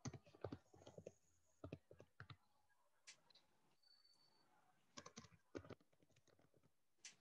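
Faint, irregular clicks and light taps from a watercolour brush working paint onto paper as leaves are laid in.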